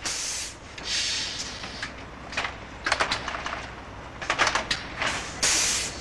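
Solenoid valves on a laundry ironing machine releasing repeated short hissing blasts of compressed air to blow sheets flat, with a few sharp clicks between the blasts; the longest and loudest blast comes near the end.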